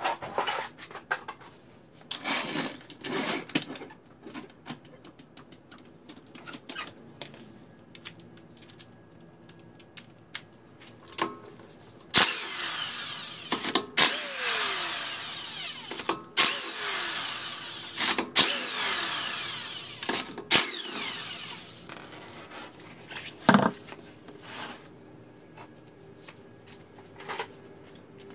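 Cordless impact wrench spinning a car wheel's lug bolts loose in five bursts of about two seconds each, midway through, with scattered clicks and knocks of handling tools and parts before and after.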